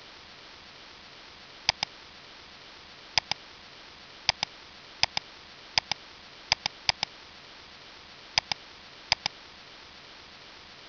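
Computer mouse button clicked about nine times at irregular intervals. Each click is a sharp double tick as the button is pressed and released, over a steady hiss.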